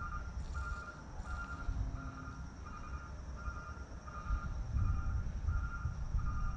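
Wind buffeting the microphone in a steady, uneven low rumble. Over it, a short high chirp repeats evenly, about every two-thirds of a second.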